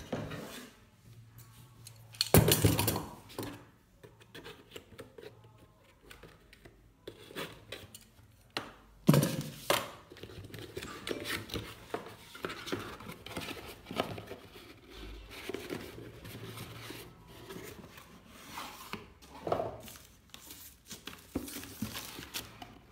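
Cardboard accessory box and its packaging being handled and opened: rustling, scraping and light tapping of cardboard flaps, with a louder scrape about two and a half seconds in and a sharp bump about nine seconds in.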